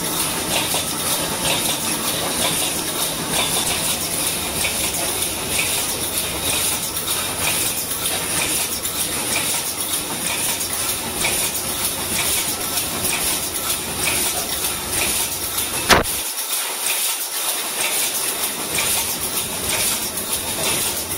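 Automatic welded wire mesh machine running, its resistance-welding heads firing in a regular rhythm over a steady hissing mechanical noise as the mesh is fed through. A single sharp click sounds about three quarters of the way in.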